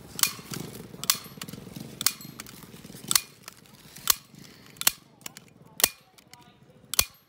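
Bostitch hand staple gun squeezed rapidly, snapping about once a second, eight times.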